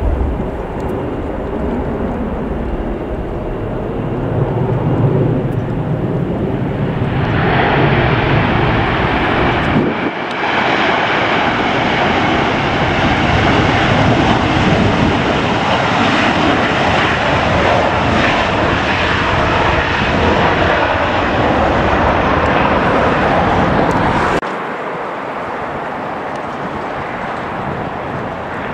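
Jet airliner engines as one plane takes off and another lands. The engine noise swells about seven seconds in, holds loud and steady, and drops abruptly about twenty-four seconds in.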